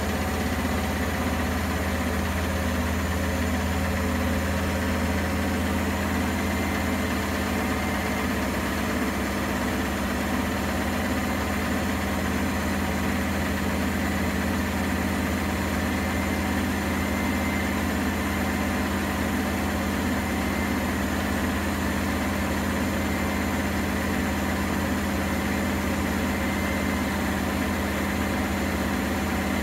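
Primus P6 commercial washing machine spinning its drum at a steady speed: an even motor hum with a faint high whine, holding the same pitch throughout.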